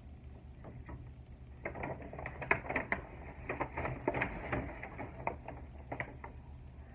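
Plastic food packaging being handled: a quick run of crinkles, clicks and light knocks, busiest in the middle, over a low steady hum.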